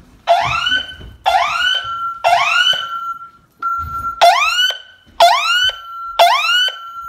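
Home security system's siren sounding a fire alarm: rising whoop sweeps about a second apart, each ending in a short held tone, in groups of three with a brief pause between groups.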